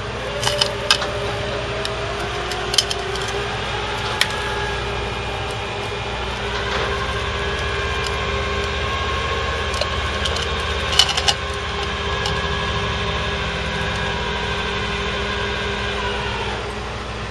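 Tow truck's deck hydraulics and winch whining steadily as the vehicle is let down off the bed, the pitch rising in the first few seconds, then shifting about six seconds in, and stopping near the end. A few sharp metallic clanks sound near the start and again about eleven seconds in.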